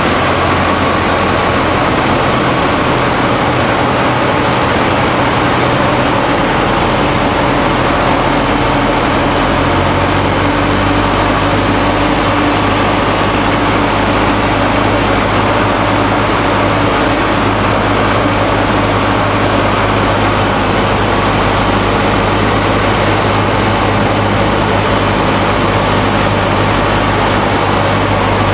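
Light propeller plane's engine and propeller droning steadily, heard inside the cockpit on final approach to landing. The low engine note shifts about ten seconds in.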